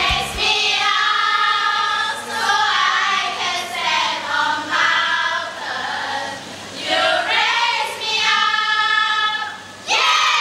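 A group of young women singing together in phrases, the backing music dropping out just after the start. Near the end their voices jump louder.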